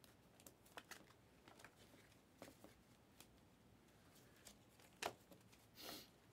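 Faint clicks and rustles of a stack of Panini Prizm and Mosaic basketball cards being handled and sorted by hand, with a sharper click about five seconds in and a short rustle just before the end.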